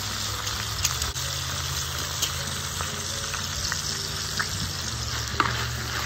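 Thinly sliced beef sizzling in hot oil in an earthenware cazuela: a steady frying hiss with a few sharp pops and ticks, the sharpest about five seconds in.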